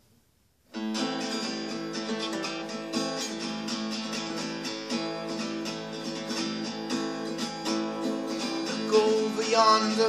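Acoustic guitar playing a folk song's intro, starting suddenly about a second in with a steady run of strummed chords. A man's singing voice comes in near the end.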